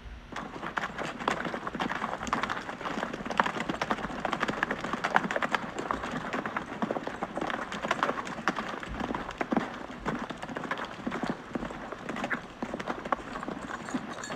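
Horse hooves striking the ground in quick, irregular succession, the many overlapping strikes of horses on the move.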